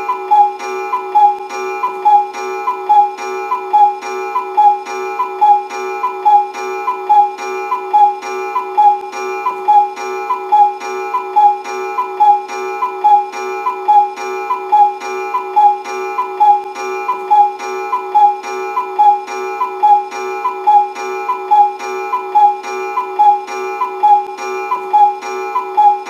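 Cuckoo clock call, a two-note 'cu-ckoo', repeated on a loop about once a second over a steady tone.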